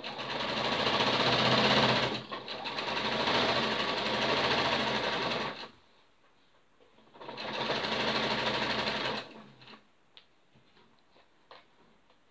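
Electric sewing machine stitching a seam through dress fabric, in two runs: a long one of about five and a half seconds that eases briefly near two seconds, a short pause, then a shorter run of about two seconds. After it stops, a few faint clicks.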